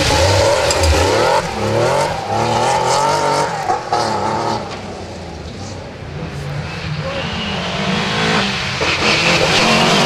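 Classic Porsche 911 rally car engine at full throttle as it passes, its pitch rising and falling through quick revs and gear changes. After a quieter stretch in the middle, another rally car's engine builds up near the end.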